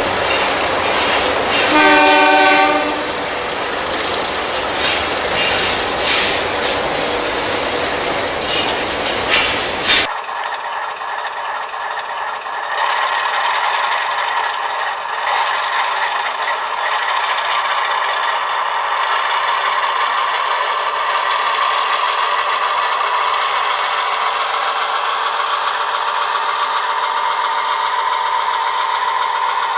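Several NSWGR 48 class diesel locomotives accelerating, with a multi-note horn blast about two seconds in. About ten seconds in this gives way to an HO-scale model 48 class's SoundTraxx Tsunami Alco 244 sound decoder playing a diesel accelerating: a thin sound from a small onboard speaker, with no bass.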